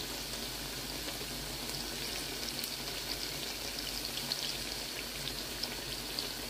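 Spinach pakoras (palak pakoras) deep-frying in hot oil: a steady sizzle with scattered small crackles.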